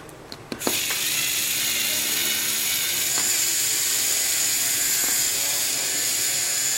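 Small electric screwdriver running steadily with a constant high whine, starting after a few light clicks about half a second in, as it backs a Phillips screw out of a GoPro Hero 4 Silver's case.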